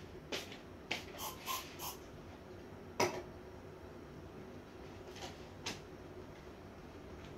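Light clicks and knocks of small items being handled and set down on a wooden bedside cabinet while it is tidied, with a few brief brushing sounds early on and one sharper knock about three seconds in, over a faint steady room hum.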